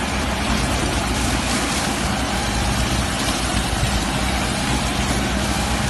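Whole-stalk sugarcane harvester at work: its engine runs steadily under a constant wash of machinery noise, with no change in pace.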